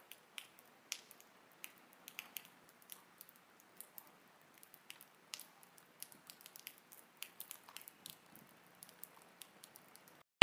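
Sparse water drops tapping irregularly, about three a second, over a faint steady hiss of light rain.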